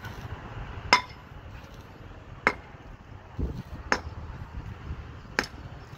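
A long steel bar struck down onto the head of a concrete pile four times, about a second and a half apart. Each blow is a sharp metallic clink with a short ring.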